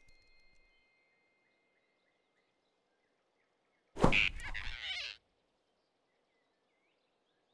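Cartoon grab sound effect: a sudden sharp hit about four seconds in, followed by about a second of dense rustling noise as a large paw snatches a small animal. Otherwise only faint forest ambience.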